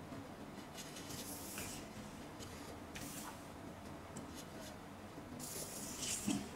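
Marker pen drawing lines on pattern paper along a plastic ruler, a faint scratching hiss in short strokes with small ticks as the ruler is shifted across the paper. A louder low knock comes just before the end.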